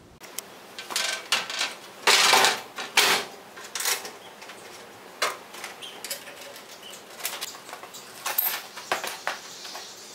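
Rustling and shuffling of a person moving about and getting down onto the floor, with a few sharp knocks and light clinks. The loudest rustles come about two and three seconds in.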